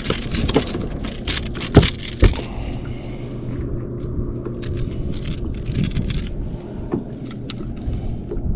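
Sharp clicks, knocks and rattles from a fish being handled and weighed on a bass boat, thickest in the first couple of seconds, over a steady low hum.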